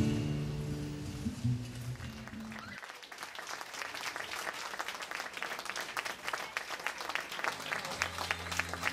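Acoustic guitar music fading out, then a roomful of people clapping from about three seconds in.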